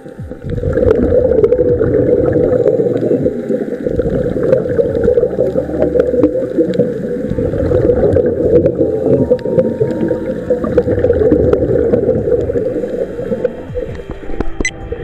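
Muffled underwater noise picked up by a camera below the surface: a dense rushing, bubbling wash with many small clicks and crackles, dipping briefly about four seconds in and again near the end.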